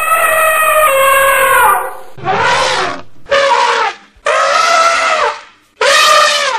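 Elephant trumpeting: five loud, brassy calls in a row. The first is long and falls slightly in pitch, and the others are shorter, under a second each, with brief gaps between.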